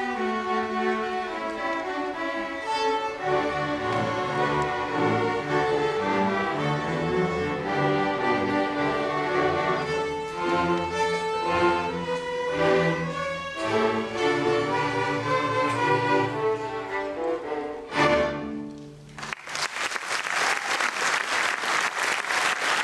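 Sixth-grade string orchestra of violins, violas and cellos playing, closing on a sharp final chord about eighteen seconds in. Audience applause follows for the last few seconds.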